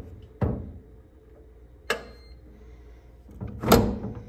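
Blacksmith rifle safe's electronic keypad lock being worked: a few sharp clicks as the keys are pressed, one with a brief beep about two seconds in. Near the end the handle is turned and the bolts retract with a louder metallic clunk.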